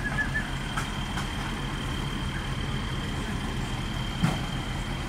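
Motor vehicle engines idling in the street, a steady low hum, with a thin steady high whine over it. A single sharp knock about four seconds in.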